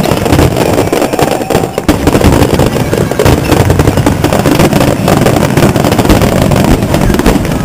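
Rapid-fire barrage of aerial firework shells bursting, a dense, continuous rattle of overlapping bangs.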